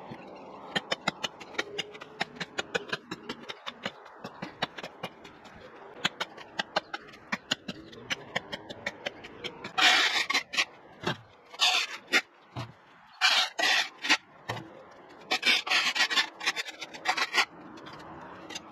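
Hand garden tools working through overgrown ivy: a run of quick sharp snips, about four a second, then louder rasping scrapes of about half a second each from around the middle.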